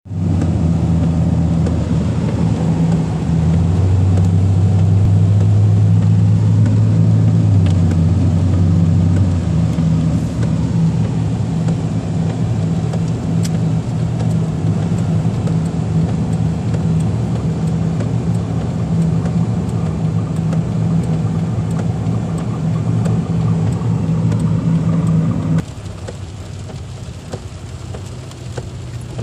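Car interior while driving on rain-soaked roads: a steady, loud drone of engine and wet-road tyre noise with a hum running under it. The drone drops suddenly near the end.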